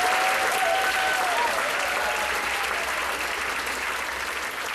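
Audience applauding, with a brief pitched call over the clapping near the start. The applause slowly fades.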